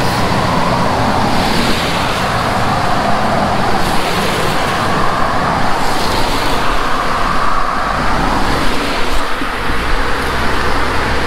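Cars passing one after another on a paved two-lane road, their tyre and engine noise swelling and fading, over the steady rush of a creek running under the road.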